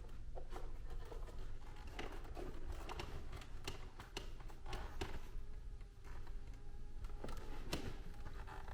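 Light taps and clicks from handling an air flow capture hood as it is fitted back over a supply register, over a steady low hum.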